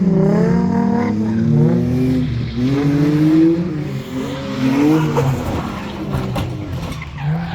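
BMW E46 engine revving hard under load while being driven. Its pitch climbs and drops several times, and it cuts off suddenly at the end.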